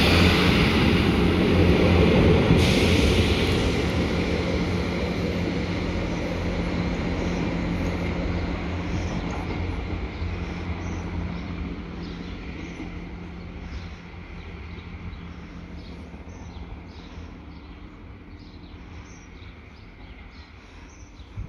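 Class 158 diesel multiple unit pulling away, its diesel engine drone and wheel-on-rail rumble fading steadily as it draws away. A short burst of hiss comes about three seconds in.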